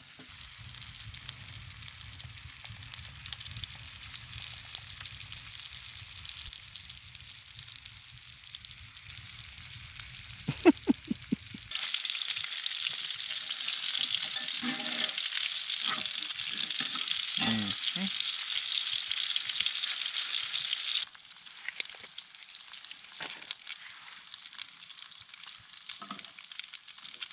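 New York steaks sizzling in a pan on a small wood stove, a steady frying hiss that grows much louder and brighter for about nine seconds in the middle before dropping back. A few short clacks of utensil or pan, the loudest about ten seconds in.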